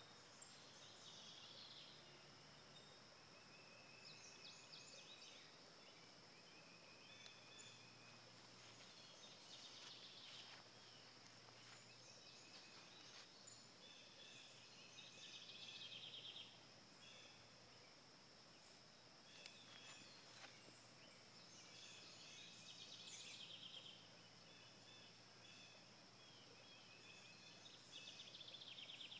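Near silence: faint outdoor ambience with birds chirping in short phrases every few seconds, over a steady high-pitched whine.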